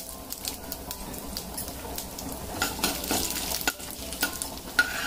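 Mustard seeds and urad dal frying in hot oil in a kadai for a tempering: a steady sizzle with scattered sharp crackles and pops. A steel ladle stirs through the pan.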